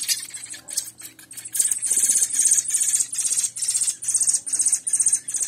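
Thrush (sabiá) nestlings begging for food at feeding time: high-pitched calls repeating about three times a second, starting about a second and a half in, after a few light clicks.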